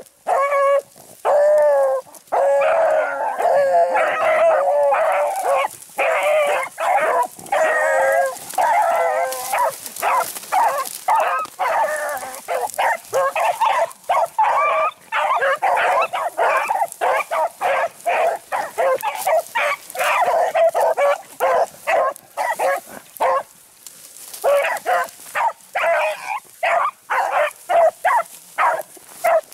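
A pack of rabbit beagles baying in overlapping, nearly continuous calls as they work a rabbit's scent through brush. The calls thin out about two-thirds of the way through, then pick up again.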